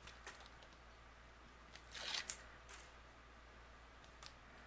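Release paper being peeled off foam adhesive strips on the back of a cardstock panel: a soft, scratchy rustle about two seconds in, among a few faint clicks of paper handling.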